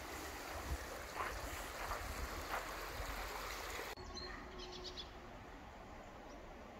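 Stream water running under a stone bridge, with a few short bird chirps. About four seconds in the water sound stops abruptly, leaving a quieter outdoor background with faint high bird chirps.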